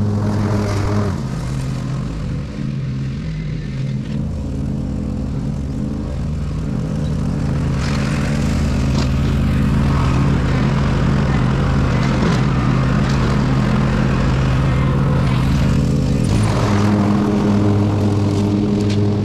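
Ride-on lawn mower engine running steadily while mowing. Its tone changes about a second in and again near the end, and it is a little quieter in the first part before growing louder.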